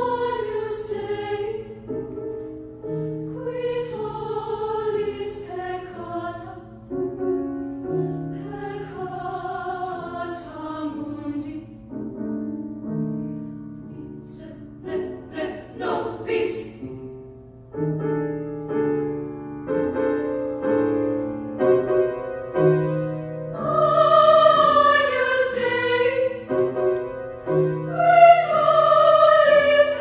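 Women's choir singing in parts with a keyboard accompaniment holding low sustained notes beneath the voices. The singing swells louder and fuller near the end.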